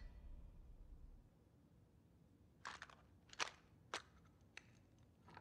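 Four or five faint, short clicks and taps from small objects being handled on a table, spaced about half a second apart. Before them, in the first second, a low rumble fades away.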